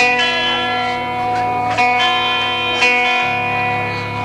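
Distorted electric guitar ringing out with a steady, feedback-like drone, struck with a few chords about two seconds and three seconds in, with bass underneath, heard in a live rock band's audience recording.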